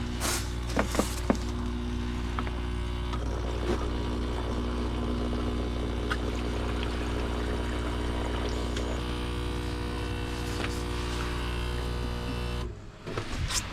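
Pipe-thawing machine running with a steady electric hum and a few clicks about a second in, switched off suddenly near the end.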